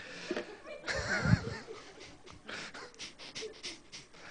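A man laughing breathily into a handheld microphone, in short wheezy pulses, with a louder voiced laugh about a second in.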